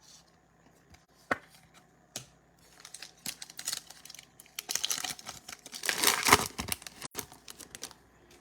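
Foil wrapper of a Donruss Optic trading-card pack being torn open and crinkled, with a few light clicks first and then a run of tearing and rustling, loudest about six seconds in.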